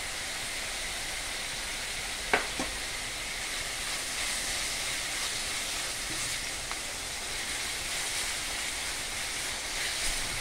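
Finely chopped onions sizzling in hot oil in a steel kadai, a steady frying hiss as they are stirred with a silicone spatula, with a sharp tap a little over two seconds in. The onions are at the softening stage, cooked only until translucent.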